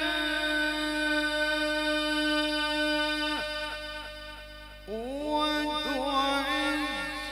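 Male voice in melodic Quran recitation (tilawah) through a microphone and loudspeakers, holding a long sustained note that trails off. About five seconds in, a new note slides up and is held.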